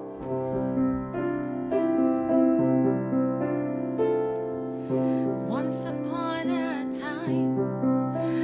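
Piano playing slow, sustained notes and chords. About five seconds in, a soprano voice comes in above it, singing with a wide vibrato.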